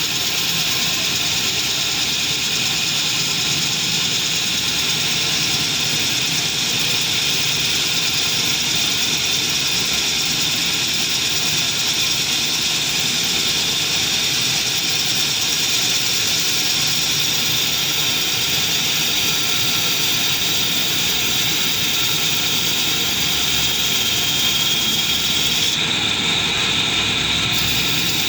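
Metal-turning lathe running steadily, with a constant machine noise. Its high part briefly thins out near the end.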